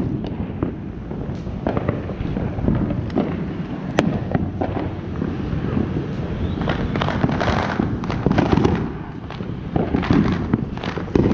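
Consumer fireworks going off from many directions at once: an unbroken run of bangs and crackles, with one sharp bang about four seconds in and thick crackling bursts in the second half.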